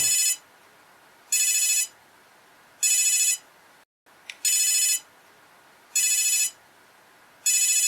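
Electronic telephone ringtone: short warbling bursts of high tones, each about half a second long, repeating about every one and a half seconds.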